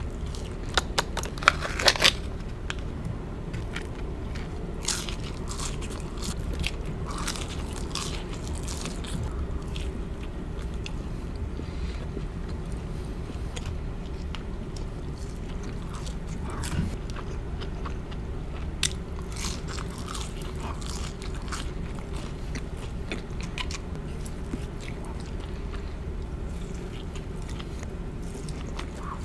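Close-miked eating sounds: biting into and chewing crunchy food. Sharp crunches are bunched in the first two seconds and scattered through the rest, over a steady low background noise.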